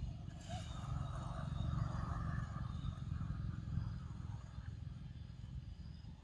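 Low rumble of a passing motor vehicle, swelling about two seconds in and then slowly fading.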